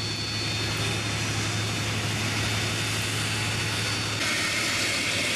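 Steady running of a heavy engine, a low hum under a rushing noise; about four seconds in the noise turns brighter and hissier.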